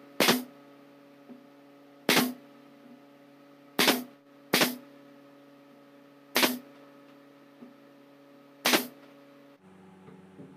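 Nail gun firing six times at uneven intervals, each a sharp crack, driving brads through a thin plywood panel.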